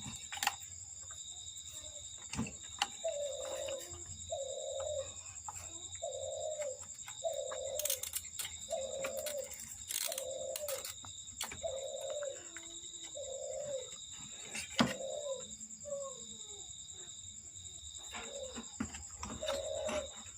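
A bird cooing in a regular series of short low notes, about one a second, pausing briefly before starting again near the end. Sharp clicks and knocks sound now and then, the loudest about fifteen seconds in, over a steady high-pitched whine.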